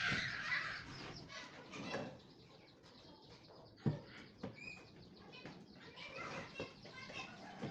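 Birds chirping in the background, with a few sharp knocks, the loudest about four seconds in.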